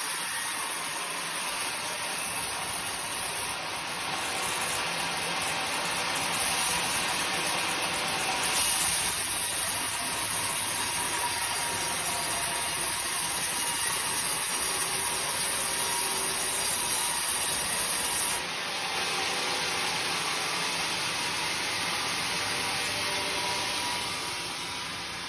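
Woodworking machinery running with a loud, steady hiss, its sound changing abruptly a few times.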